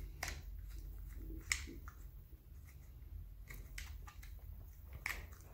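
Hands pressing thin lead wires down into the plastic housing of a HiKOKI C3606DA cordless circular saw: soft handling noise with a few scattered sharp plastic ticks.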